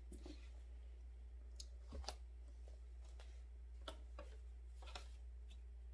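A few faint, scattered clicks and light knocks as plastic containers are handled and set down on a table, over a steady low hum.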